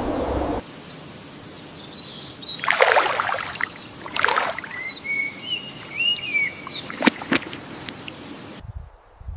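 A steady rushing noise cuts off about half a second in. Then birds chirp in short high calls over a faint outdoor background, with two louder rustling swishes around three and four seconds in and a couple of sharp clicks near seven seconds. Near the end a low rumble comes in.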